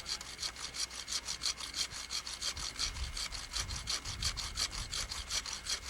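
Hand saw cutting through the trunk of a Christmas tree, in quick, even back-and-forth strokes, several a second.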